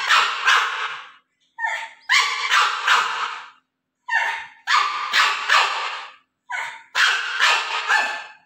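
Pug puppy vocalising in harsh, rasping bursts, a short one followed by a longer one, repeated four times with pauses between.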